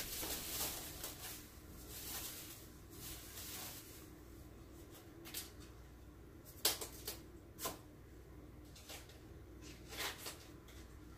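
Kitchen work sounds: scattered knocks and clicks with some rustling as a head of cabbage is cut in half with a knife on a board and handled, over a faint steady hum.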